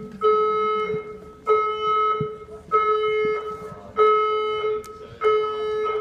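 Building fire alarm sounding a pulsed beep. A steady low tone with overtones comes in beeps about a second long, each starting every one and a quarter seconds, five times. This steady on-off beep, with no rising whoop, is the alert signal of an Australian emergency warning system.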